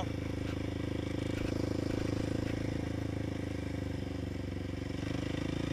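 450 quad's single-cylinder four-stroke engine running at a steady speed under way, freshly tuned and warmed to operating temperature. The note holds even, without popping.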